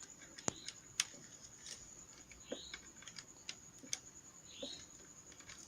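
Faint, scattered clicks and light plastic taps from a repaired computer mouse and its cable being handled, at irregular spacing with a soft rustle or two.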